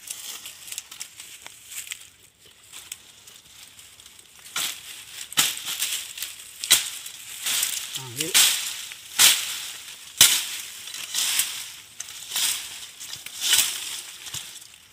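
Hand tool chopping into the fibrous base of a wild date palm clump. From about four and a half seconds in there is a run of sharp blows, roughly one a second, with a short grunt-like voice sound near eight seconds.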